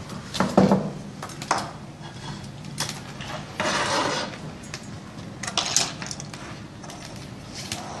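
Scattered clicks, knocks and light clinks of small refrigerator electrical parts and wires being handled on a workbench, with a brief scraping rustle about halfway through.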